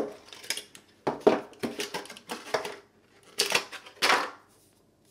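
Cardboard box and clear plastic packaging tray rustling and scraping in short bursts as a phone handset with a coiled cord is pulled out of them. The loudest scrapes come about three and a half and four seconds in.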